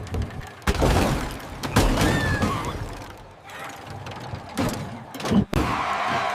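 A run of sudden crashes and thuds, about four, each trailing off briefly, with a quieter gap in the middle.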